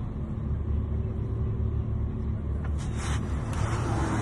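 Car on the move: a steady low rumble, a few short clicks about three seconds in, then a growing hiss of road and wind noise.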